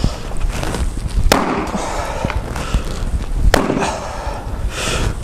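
Axe blows chopping into a wooden board laid across a stump: three sharp cracks, at the start, about a second in and about three and a half seconds in, as the same spot is struck again and again to cut through.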